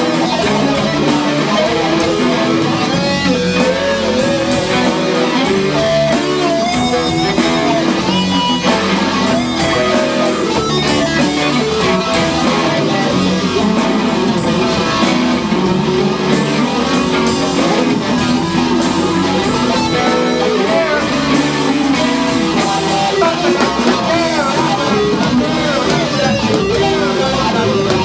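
Live rock band playing an instrumental passage: electric guitars over bass guitar and a drum kit, with steady drum strokes throughout.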